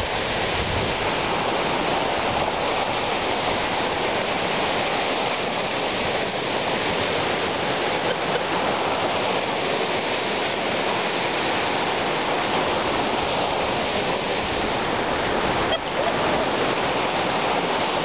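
Small lake waves breaking and washing up a sandy shore: a steady rush of surf, with a brief dip in level near the end.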